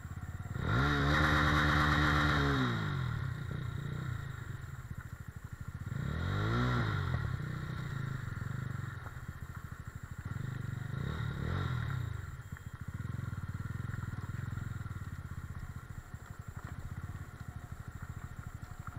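Mahindra Mojo 300 motorcycle's single-cylinder engine running at low speed over rough ground. Its note rises and falls with three throttle openings: the strongest about a second in, smaller ones around six and twelve seconds. Between them it runs steadily at low revs.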